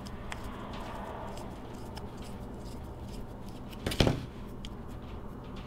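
Small clicks of a screwdriver backing the needle screw out of a small-engine carburetor. About four seconds in comes a single sharp knock as the screwdriver is set down on the workbench.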